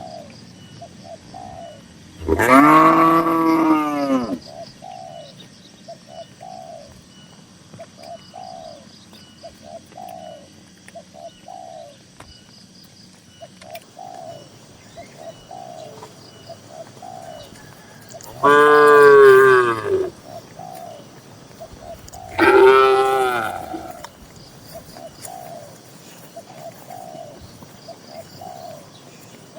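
Cows in a barn mooing three times in long, loud calls, one about two seconds in and two close together later on. Underneath, a bird coos steadily in short repeated calls.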